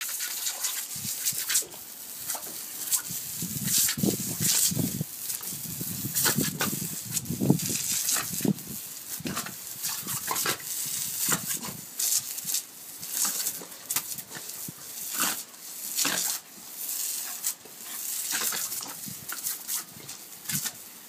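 High-pressure garden hose jet hissing and spattering on brick paving while a Patterdale terrier growls and snaps at the water. The growling is heaviest from about three to eight seconds in.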